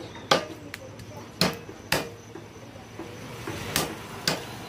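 Heavy cleaver chopping through a rooster carcass onto a wooden tree-stump block: about five sharp chops at uneven intervals.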